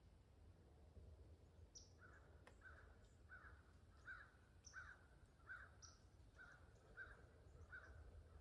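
Faint bird calls in the woods: one bird calls about nine times in an even series, roughly one call every two-thirds of a second, starting about two seconds in. Another bird adds a few short, high chirps.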